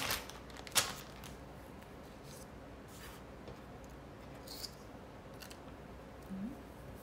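Two sharp clicks near the start, under a second apart, then faint, scattered scratching strokes of colouring on paper.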